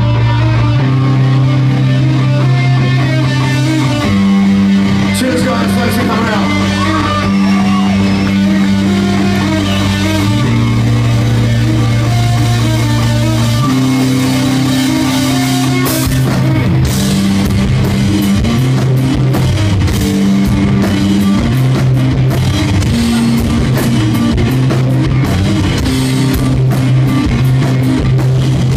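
Live heavy rock band playing loud, with distorted electric guitar and bass holding long low chords. About halfway through, drums and cymbals drive in harder.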